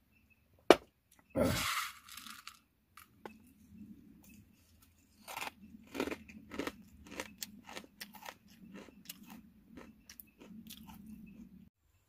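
Close-up crunching and chewing of a dry, crunchy snack: a run of irregular crunches through the middle, after a sharp click about a second in and a short rustle just after it.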